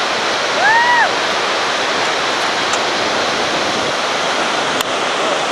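Steady rushing roar of whitewater river rapids in the gorge below. About a second in, a short call rises and then falls in pitch, and a single sharp click comes near the end.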